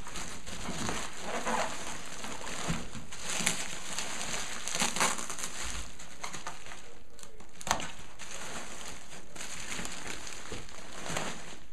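Bubble wrap and packing paper crinkling and rustling as wrapped items are handled and lifted out of a cardboard box, with one sharp click about eight seconds in.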